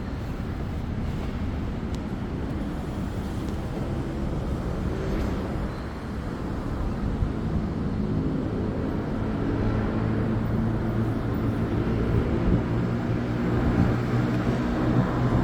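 Extreme Bull Rocket electric unicycle being ridden at speed: wind noise on the microphone over a steady motor hum that grows stronger about halfway through. With the new firmware installed, the rider judges it free of the grinding it made above 25 km/h.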